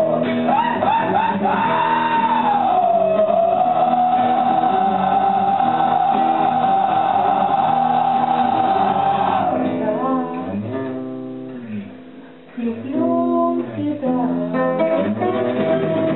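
A man singing live to his own acoustic guitar. He holds one long high note for about nine seconds, then sings shorter phrases; the music drops briefly quieter just past the middle before picking up again.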